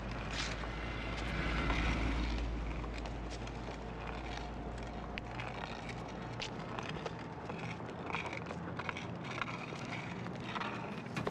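City street traffic noise: a vehicle's low rumble swells about two seconds in and fades away over the next few seconds, with scattered light taps over the street hum.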